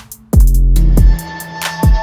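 Background electronic music with a heavy sub-bass beat, falling bass sweeps and crisp hi-hat ticks; the bass drops out for about a second in the middle.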